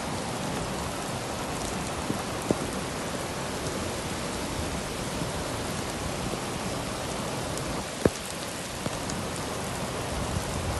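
Steady heavy rain, heard from inside a car, with a few scattered taps and one sharp knock about eight seconds in.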